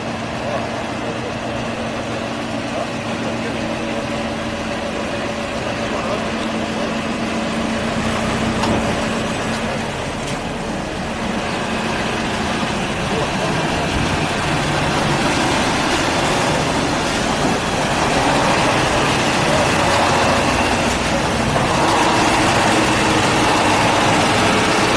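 Engines of heavy armoured military trucks and SUVs running as the vehicles drive slowly past at close range, getting louder toward the end as they come near.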